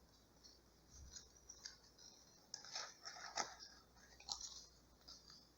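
Faint paper crackling and rustling as a letter is handled and pulled out of its envelope, in short crisp scrapes that are busiest in the middle.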